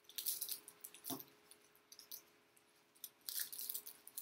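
Dry leaves crackling and crunching as they are pressed flat onto glued paper, in two short bursts, one at the start and one about three seconds in. There is a soft knock about a second in.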